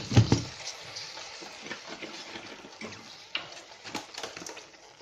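Vinegar being poured over salt-heaped snails in a steel pot: a quiet trickling hiss, a little stronger in the first second or so, then scattered faint clicks.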